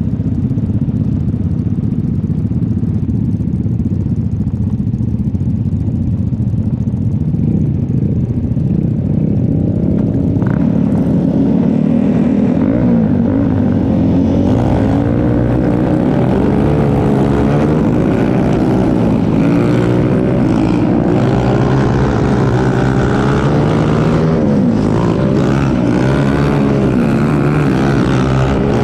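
Single-cylinder four-stroke Lifan grass kart engines running on the grid, idling steadily at first. From about a third of the way in they are revved up and down repeatedly, and they run hard as the karts move off near the end.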